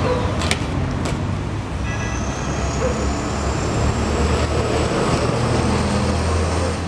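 Steady street traffic rumble, with two sharp knocks about half a second and a second in, and a faint high whine rising slowly from about two seconds in.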